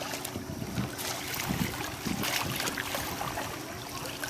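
Wooden oars of a small plywood rowboat dipping and pulling through lake water, with a few short splashes over a steady wash of water.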